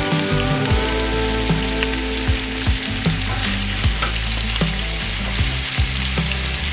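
Bacon-wrapped pheasant breasts sizzling in oil in a skillet, a steady frying hiss, with a few short clicks of metal tongs against the pan as the pieces are turned.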